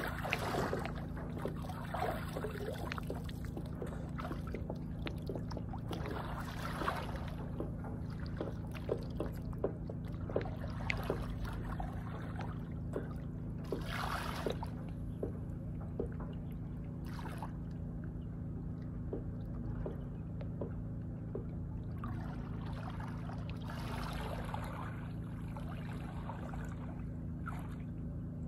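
Water splashing and lapping in short irregular bursts over a steady low mechanical hum.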